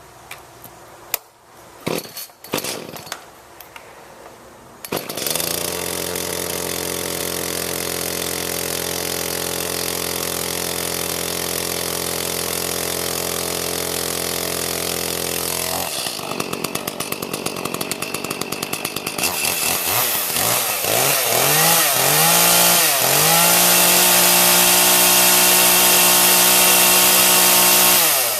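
Echo two-stroke chainsaw being started: a few short pulls, then the engine catches about five seconds in and runs steadily. Around sixteen seconds it sputters unevenly, then picks up and is revved several times, rising and falling, and is held at high revs near the end.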